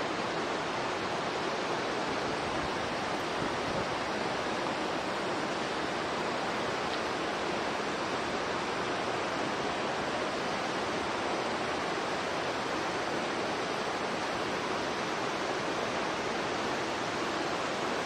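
Steady, even rushing of flowing water with no breaks or changes.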